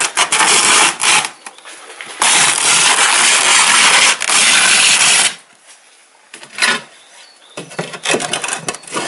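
Ceramic floor tile spread with tile adhesive being pushed under the notched-trowel combs of a homemade double-buttering jig: harsh scraping of adhesive and tile against the blades and wooden rails, a short stroke and then a longer one of about three seconds. Lighter knocks and clicks follow as the tile is handled.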